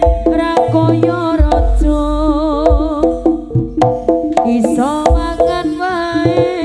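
Live East Javanese jaranan music: hand-drum strokes and low drum thumps under a sustained melodic line that wavers in pitch about two seconds in.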